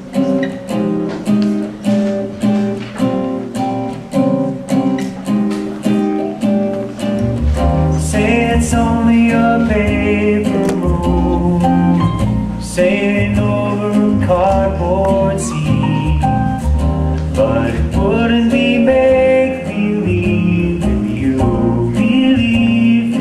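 Song with a repeated picked guitar figure, joined about seven seconds in by a bass line and a singing voice.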